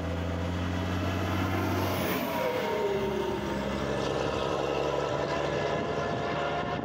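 Volvo FH 500 truck's diesel engine running steadily, its note shifting and falling in pitch about two seconds in.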